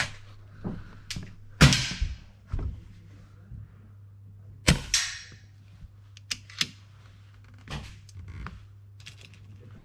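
Air rifle shots in an indoor range: two sharp cracks about three seconds apart, the first about one and a half seconds in, each with a short echo off the walls. Fainter clicks and knocks come between them.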